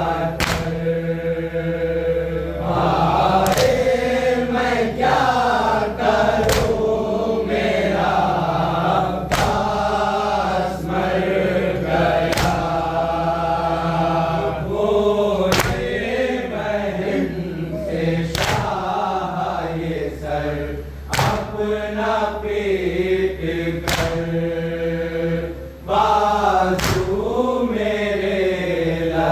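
Men's voices chanting a noha, a Shia Muharram lament, with a sharp slap about every three seconds, the beat of matam (chest-beating). A steady low hum runs underneath.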